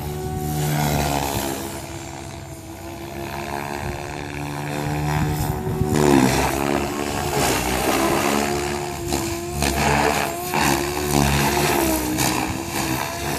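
SAB Goblin 630 electric RC helicopter in flight, its Scorpion brushless motor and rotor making a steady pitched whine. The pitch dips sharply and recovers about six seconds in, and the sound is louder and more uneven after that.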